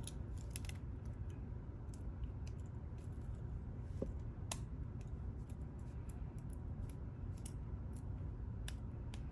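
Scattered small metallic clicks and taps as snap ring pliers and other small tools are handled, with a brief light ping about four seconds in, over a steady low hum.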